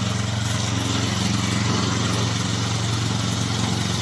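Gasoline engine of a tracked remote-control slope mower running at a steady speed.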